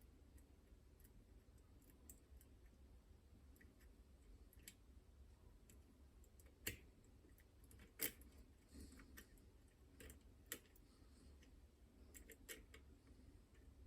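Faint, scattered metallic clicks of picking tools working the levers inside a Chubb Detector lever lock, the loudest two about seven and eight seconds in, over a faint low hum.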